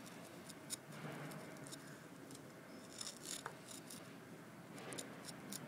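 A small pointed blade scratching and incising a carved plaster relief: faint, irregular scrapes and ticks, coming thicker about three seconds in.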